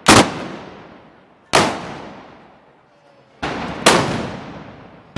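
Four loud gunpowder blasts, each sharp crack trailing off in a long echo: festival arquebus or blunderbuss shots, or firecrackers, at a Moros y Cristianos fiesta. Two of the blasts come about half a second apart, near the end.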